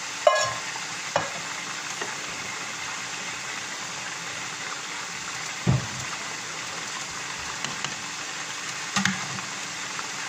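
A spoon stirring basmati rice in a pot of boiling water, knocking against the steel pot now and then: a ringing clink just after the start, a heavier dull knock about halfway, and another clink near the end, over a steady hiss.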